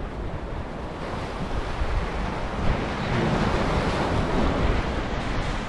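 Sea waves washing and splashing against the rocks of a breakwater, with wind buffeting the microphone. The surf swells louder about halfway through.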